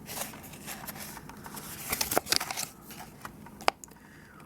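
Plastic keycaps and their packaging being handled: rustling with many sharp clicks, busiest about halfway through, with a single sharp click near the end.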